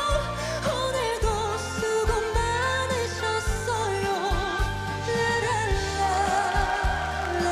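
Male trot singer holding long, wavering high notes of a ballad over band accompaniment, sung in the original key despite a sore throat.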